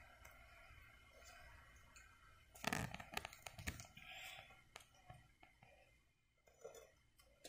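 Faint clicks and soft scrapes of a knife spreading frosting on a cake and knocking against the glass cake plate, with a quick run of clicks about two and a half to four seconds in.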